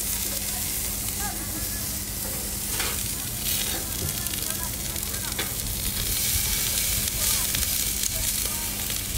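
Beef steaks sizzling on a small gas grill's grate as they are turned with metal tongs, with a few sharp clicks of the tongs against the grate.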